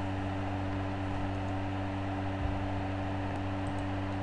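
Steady low hum with a hiss of background noise: room tone on the microphone, with nothing else happening.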